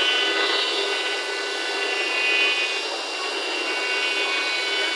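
CNC wood router's spindle routing grooves into a wooden door panel: a steady whine over the hiss of the bit cutting wood.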